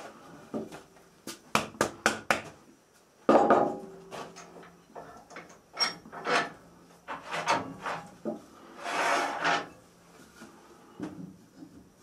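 A thick oak blank and the parts of a stopped wood lathe being handled. There is a quick run of wooden knocks about a second in, a heavy thud near three seconds, scattered clunks, and a rasping scrape of wood sliding on wood about nine seconds in.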